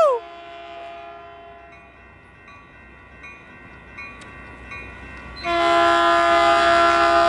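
Caltrain commuter train sounding its multi-tone horn on approach: a loud blast cuts off just after the start, a quieter stretch of the approaching train follows with a few faint dings, and a second long blast begins about five and a half seconds in.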